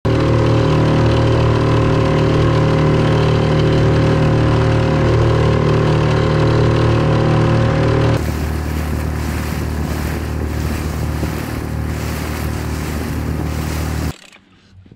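Yamaha 6 hp outboard motor running steadily on an inflatable boat under way. About eight seconds in, the sound changes abruptly to a rougher, less even noise, and about a second before the end it cuts off suddenly.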